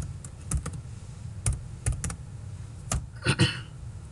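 Computer keyboard keystrokes: about eight separate, irregularly spaced clicks as a short command is typed at a terminal, then a brief rustling burst a little after three seconds.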